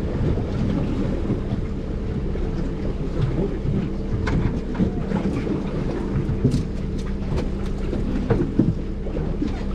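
Wind rumbling on the microphone over the steady hum of an idling outboard motor, with scattered sharp clicks and knocks.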